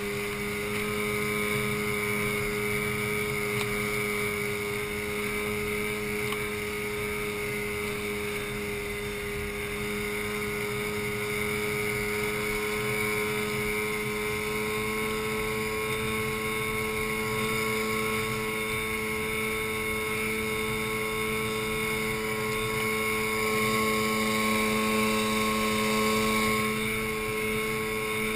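Outboard motor driving an inflatable boat at steady cruising speed: a constant engine drone that rises a little in pitch about halfway through, with wind and water noise underneath.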